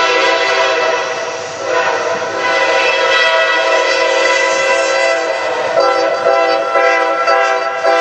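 Norfolk Southern freight diesel locomotive's air horn blowing a loud multi-note chord. It dips briefly about a second and a half in, then sounds on, and breaks into shorter blasts from about six seconds in. The horn is sounded as a salute to a bush cutter and a high-rail truck waiting in the siding.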